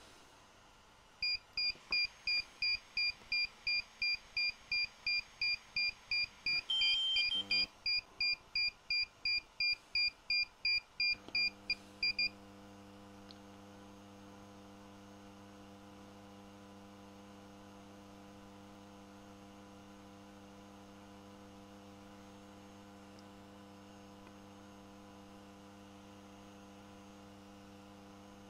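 DJI drone beeping rapidly, about two and a half short, high beeps a second, with one longer beep at a different pitch partway through: the aircraft's pairing-mode signal as it links to the remote controller. The beeping stops about twelve seconds in, leaving a steady electrical hum.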